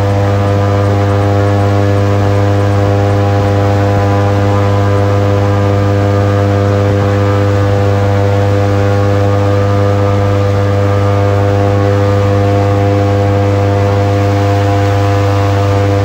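Airboat's engine and air propeller running at a steady speed: a loud, even drone that holds one constant pitch throughout.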